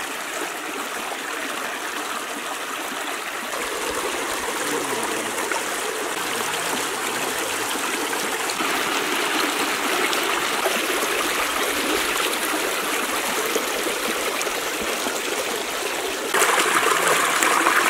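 Shallow mountain stream running and splashing over rocks, a steady rushing trickle. Its sound shifts abruptly a few times and is loudest near the end.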